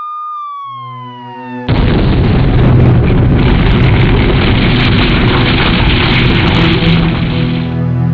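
A siren-like wailing tone slides downward over a low synthesizer drone, then about 1.7 seconds in a sudden, loud explosion sound effect breaks in and rushes on for about six seconds before cutting off, leaving held synthesizer notes.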